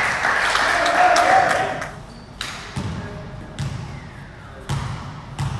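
Basketball bouncing on a hard gym floor: five uneven thumps with echo in the hall, after about two seconds of players' voices and court noise.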